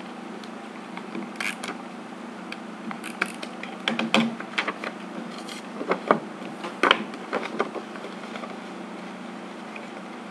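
Sticky tape and card paper being handled: irregular crackles and clicks, loudest about six to seven seconds in, over a steady low hum.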